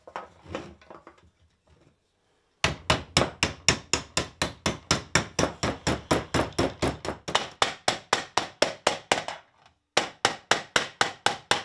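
Hand hammer striking a copper disc held over a hollow in a wooden dishing block, a steady run of about four blows a second that dishes the metal into a lampshade. The blows begin about two and a half seconds in after faint handling of the sheet, break off briefly near the end, then start again.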